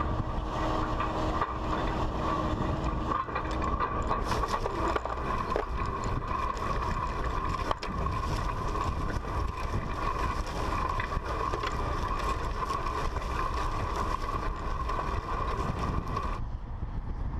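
John Deere disc harrow working corn-stalk ground behind a John Deere 4850 tractor: a steady clattering rattle of the disc gangs and frame, with the tractor's diesel running and a constant tone throughout. About sixteen seconds in the sound drops off suddenly to a quieter wind-blown field sound with the tractor further off.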